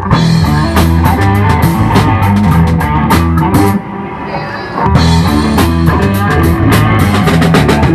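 Live funk-rock band playing an instrumental passage on electric guitar, bass and drum kit. Just before halfway the drums drop out and the music thins for about a second, then the full band comes back in.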